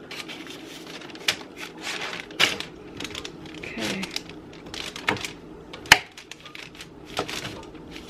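Metal fork clicking and scraping against baked potatoes and a grill plate, with parchment paper rustling: a run of irregular light taps and clicks, one sharper click about six seconds in.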